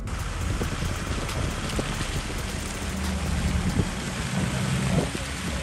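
A 4x4 engine running low as the vehicle drives slowly past close by on a gravel track, with tyre noise on the gravel and wind on the microphone.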